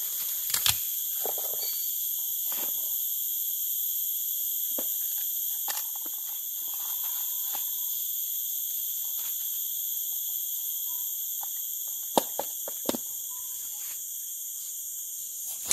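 Steady, high-pitched shrill chorus of forest insects, with a few sharp clicks or knocks scattered through it, the loudest two about twelve and thirteen seconds in.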